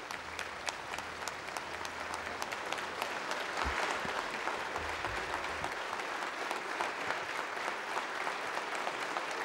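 A large crowd applauding, many hands clapping steadily, growing a little louder about three seconds in.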